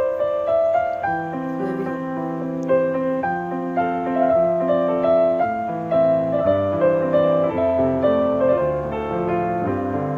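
Background piano music playing a melody of steadily changing notes.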